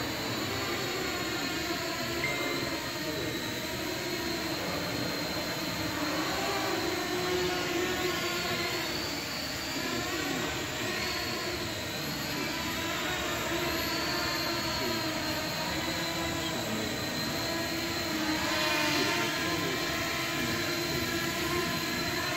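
Small quadcopter drone's electric motors and propellers buzzing with a high whine, the pitch rising and falling as the throttle changes.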